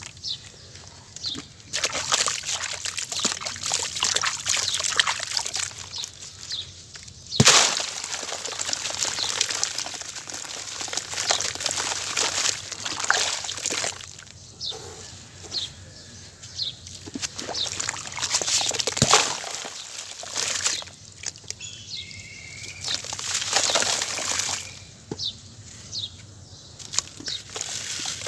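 Dry sand-cement chunks being crushed and mixed in water into a paste: wet crunching and sloshing that comes in bursts, with a sharp crack about seven seconds in.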